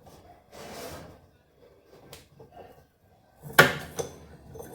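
Handling noises at the drive of a tipped-over top-loading washing machine as the belt is taken off the seized motor: a short rustle, a faint click, then a sharp loud clack about three and a half seconds in with a smaller knock after it.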